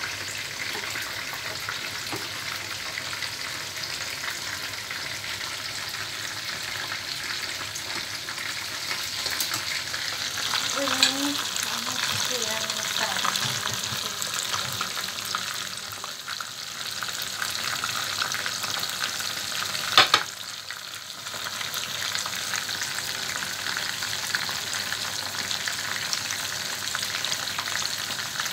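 Marinated chicken pieces frying in hot oil in a pan: a steady sizzle, with one sharp click about twenty seconds in.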